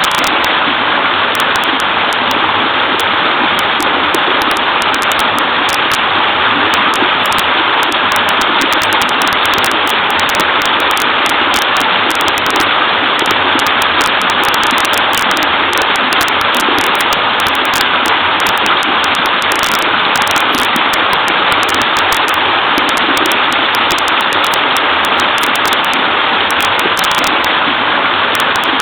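Small waterfall babbling into a wide stream: a loud, steady rush of pouring and splashing water that never lets up.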